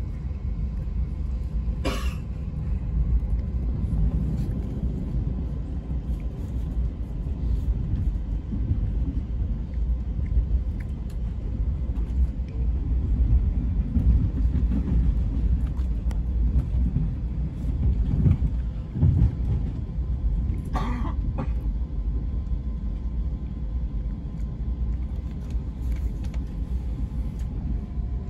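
Amtrak Acela train heard from inside while running at speed: a steady low rumble of wheels and running gear on the track. Two brief sharp noises break through it, one about two seconds in and one about three quarters of the way through.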